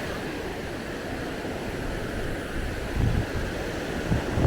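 Wash of waves on a sandy beach under steady wind, with gusts buffeting the microphone in low rumbles about three seconds in.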